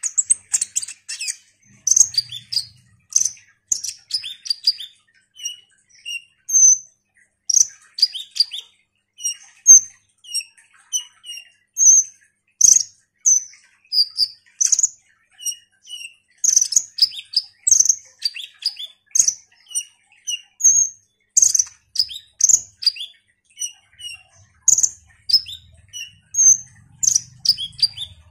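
Male kolibri ninja (purple-throated sunbird) singing: a fast, unbroken run of short, high chirps and twittering trills.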